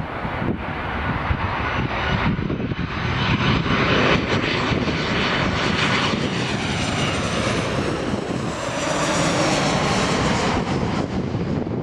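Boeing 737 jet airliner passing low overhead on final approach, gear down. Its engine noise and whine swell to a peak, then slide downward in pitch as it passes and begin to fade.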